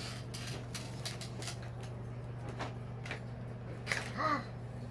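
Scattered faint clicks and taps of small toy pieces being handled over a steady low hum. About four seconds in there is a brief high, bending vocal sound from a young child.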